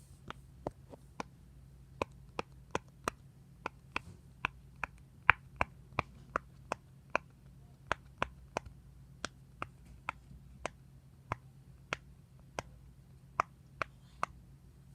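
A series of sharp, single pops at an uneven pace of about two a second, the loudest about five seconds in, over a faint steady low hum.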